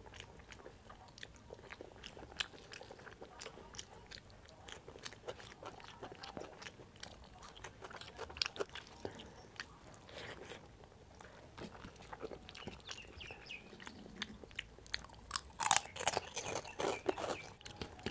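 Close-miked eating sounds: chewing and wet mouth clicks of rice and dal eaten by hand, with the squish of fingers mixing rice. Short clicks run throughout, with a louder, denser run of chewing near the end.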